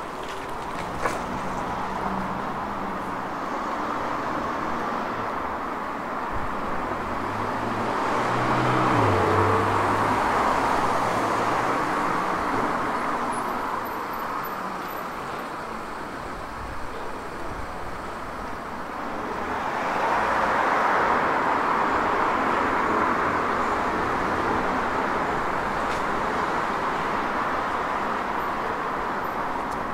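Road traffic on a town street: cars passing with a steady hiss of tyres and engine hum, swelling to two louder pass-bys, about a third of the way in and again about two thirds of the way through.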